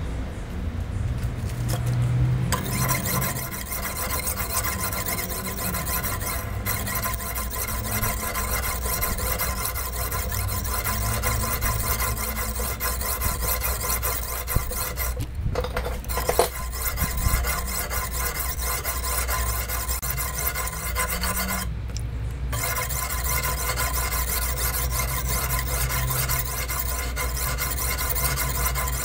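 A cheap water-soaked sharpening stone rubbed back and forth by hand along the edge of a steel kitchen knife held in a vise, a continuous gritty scraping with a few short pauses.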